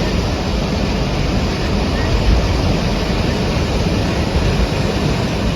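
Strong blizzard wind buffeting the microphone: a steady, loud rushing noise with a heavy low rumble.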